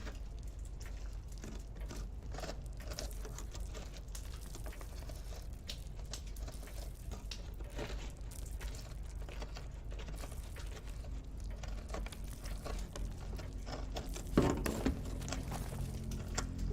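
A spoon scraping and digging into a soft, wet ceiling: irregular small scratches and crumbly crunches over a low steady hum, with one louder knock about fourteen seconds in.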